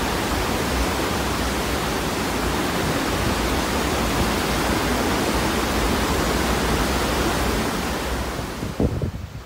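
Steady, even rushing noise like a waterfall or surf, with no pitch or rhythm. It fades away near the end, with a brief low thump just before it drops off.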